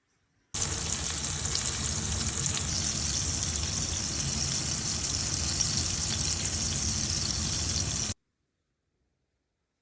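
Food frying in a pan: a steady, crackling sizzle that starts abruptly about half a second in and cuts off abruptly near the end.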